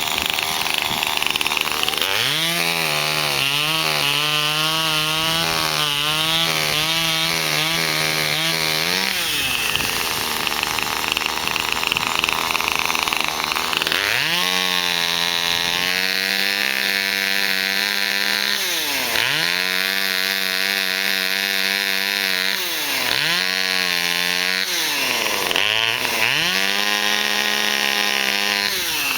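Chainsaw cutting wood: the engine revs up for a long run of about seven seconds, drops back to a lower, rougher running for a few seconds, then revs again in four runs, its pitch dipping briefly between them.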